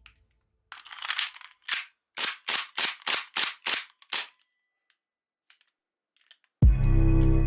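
Toy gun firing: two single shots, then a quick, even run of seven shots at about three a second. Music comes in near the end.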